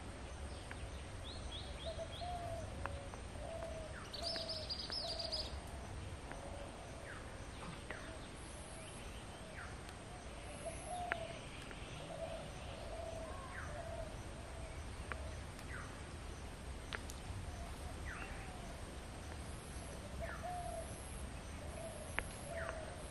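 Birds calling: a dove's low cooing repeats again and again, with a few higher chirps and a short high trill about four seconds in, over a steady low rumble.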